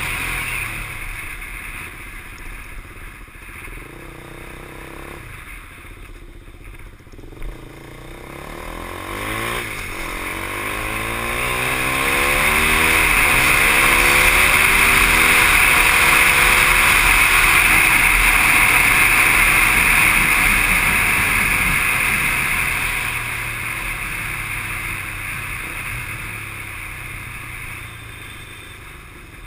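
KTM 390 Duke's single-cylinder engine accelerating, its pitch climbing and dropping several times as it pulls through the gears. Heavy wind rush over the microphone swells with speed to its loudest around the middle, then eases off as the bike slows.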